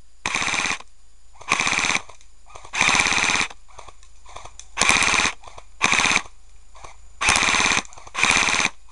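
Airsoft gun firing seven short automatic bursts of about half a second each, as covering fire at an opponent.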